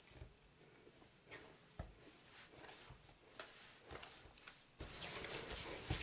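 Faint, irregular soft knocks and rubbing of pizza dough being kneaded by hand against a countertop. A steady hiss comes in near the end.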